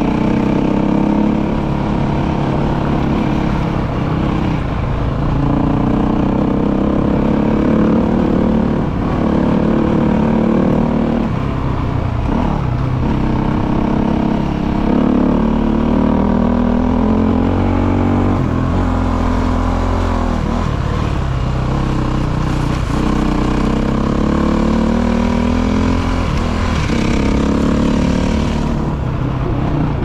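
KTM motorcycle engine running while the bike is ridden, its pitch dropping and climbing again and again with throttle and gear changes.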